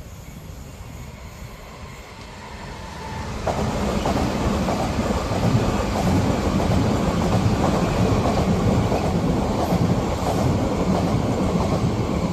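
Electric commuter train passing close by, its sound swelling about three seconds in to a loud, steady rumble. The wheels clatter rapidly over the points.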